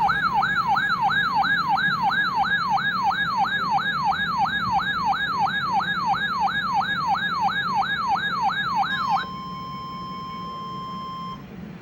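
Radioshack 12-519 weather radio's alert siren sounding a warning alarm: a loud electronic wail that sweeps up and down about two and a half times a second. About nine seconds in it stops, and a quieter steady single tone, the NOAA Weather Radio 1050 Hz warning alarm tone, holds for about two seconds.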